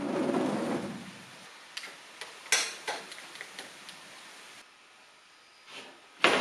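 A large clear plastic glazing sheet handled against a steel frame: a rustling, wobbling noise as the sheet flexes at first, then a few sharp clicks and knocks from clamping, and one loud knock near the end.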